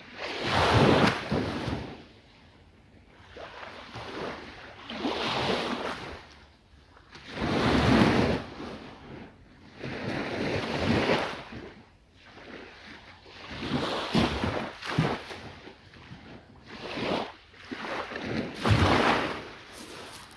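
Wind and surf, a rushing noise that rises and falls in surges every two to three seconds, with wind buffeting the microphone.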